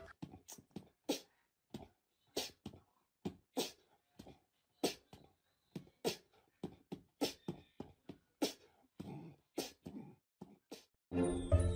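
A small dog giving a string of short, breathy huffs, about two or three a second and irregularly spaced, with brief silences between.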